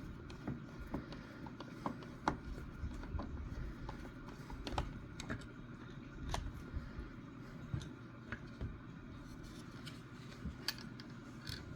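Irregular small metallic clicks and taps as a screwdriver turns out the rear stock screw of a Glenfield/Marlin Model 60 .22 rifle and the rifle is handled.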